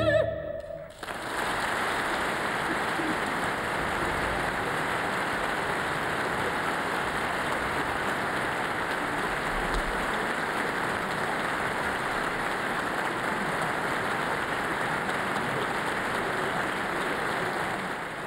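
An orchestra and singer end a final held chord about a second in, then a large audience applauds steadily in a concert hall, easing off slightly near the end.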